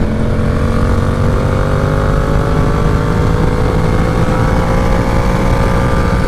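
Yamaha R7's parallel-twin engine running under steady throttle, its pitch rising slowly, with heavy wind rumble on the helmet microphone.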